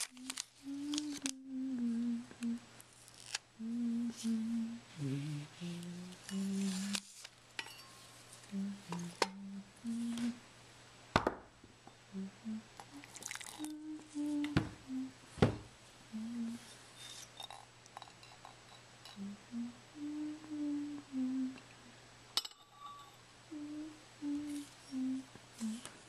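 A person humming a tune under their breath, short held notes that step up and down with pauses between phrases. A few sharp clinks of a mug and tea things being handled come in around the middle.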